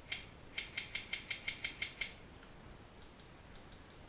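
Airsoft gun making a run of about nine sharp mechanical clicks, about six a second, after a single click at the start, with a few fainter clicks near the end.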